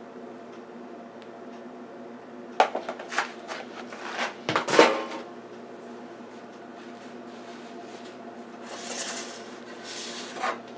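Kitchen handling noise: a cluster of clinks and knocks as a spoon and sauce container hit a stainless steel baking pan, about two to five seconds in, then a soft rustle near the end, over a faint steady hum.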